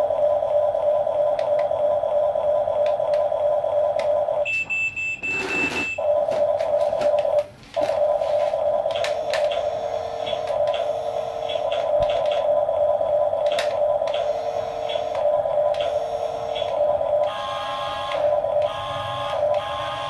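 Huina 1569 RC bulldozer toy's sound module playing an electronic engine hum through its small speaker: a steady, buzzy tone that drops out briefly twice in the first half, with stepped beeping tones joining in the second half.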